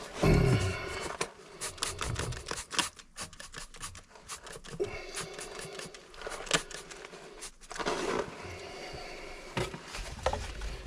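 Scraping, scratching and clicking of hands at work cleaning a split drain-vent pipe joint, in short irregular strokes with sharp clicks between them.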